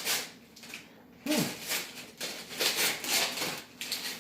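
Gift wrapping paper rustling and tearing in several bursts as a present is unwrapped. A short falling voice-like sound comes about a second and a half in.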